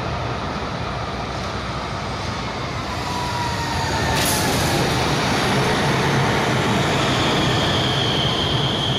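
Electric tram running along the platform: a steady rumble of wheels on rails that grows louder about three seconds in, with a falling electric whine. A sharp click comes about four seconds in, and a steady high whine sets in near the end.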